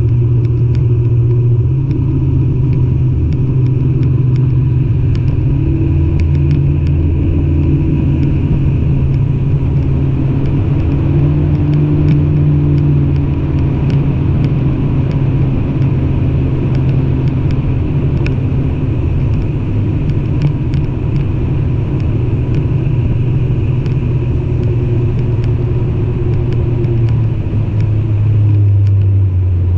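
An engine running steadily at cruising speed for a long stretch. Its pitch drops near the end as it eases off.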